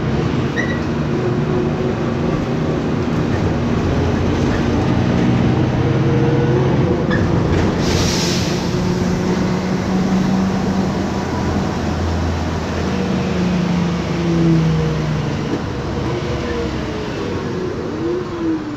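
Cabin sound of a MAN Lion's Classic city bus under way: its MAN E2876 straight-six CNG engine and ZF Ecomat 6HP504C automatic gearbox running with a steady rumble and a whine whose tones shift in steps as the load and gears change. A brief hiss comes about eight seconds in.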